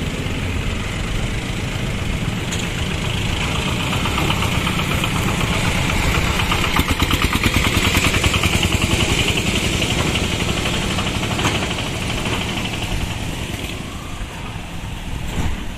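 Express train running past a level crossing at high speed: a continuous rumble and hiss with rapid, even wheel clatter over the rail joints, loudest around the middle and fading toward the end.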